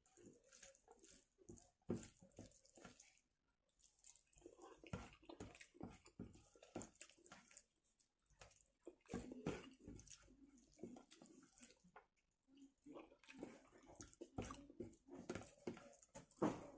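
Close-miked eating sounds: irregular wet smacks, squelches and clicks of chewing rice and chili chicken gravy.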